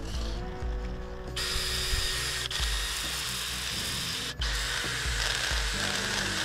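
A tool working a claret ash bowl spinning on a wood lathe: a steady hiss that starts about a second and a half in and breaks off briefly twice, over background music with a steady beat.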